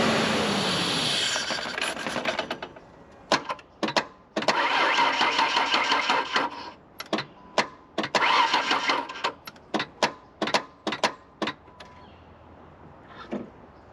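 1996 Ford Ranger's 3.0 L V6 running and dying away in the first second or two. After that come repeated sharp clicks from the starter and two whirring bursts of the starter motor with a steady whine. The engine doesn't catch, a sign of a failing starter that can't turn the motor over.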